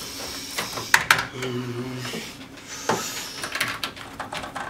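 Scattered clicks of keys and buttons pressed on a computer keyboard and control desk, with a brief low steady hum about a second and a half in.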